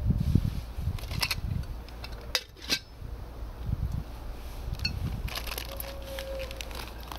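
Camping cookware being handled beside a gas stove: dull bumps, a few clinks and knocks of a cup and utensils, and two sharp clicks close together about two and a half seconds in.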